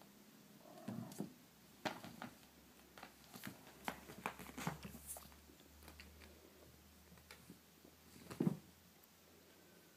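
Kittens scampering and pouncing on a quilt over a wooden floor: scattered soft thumps, paw scrapes and fabric rustles at an irregular pace, with the loudest thump about eight and a half seconds in.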